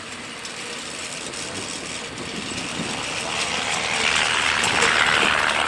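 A vehicle engine running, growing steadily louder as it comes closer.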